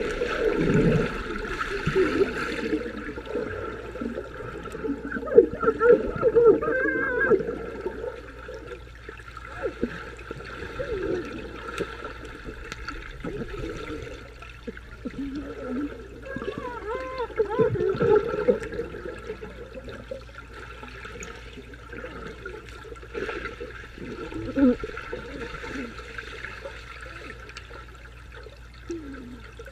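Water churning and bubbling, heard from underwater as swimmers kick and paddle overhead. Muffled, wavering voices come through twice.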